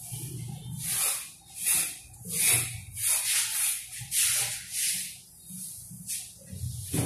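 Repeated short scraping strokes, about ten of them at an irregular pace, such as a trowel makes working cement mortar for floor tiles.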